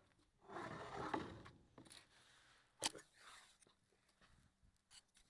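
Faint rustling and handling noise as the upturned mini quad is picked up off the deck, heard through its own onboard camera's microphone, with one sharp click a little before the middle and a smaller one near the end. No motor sound.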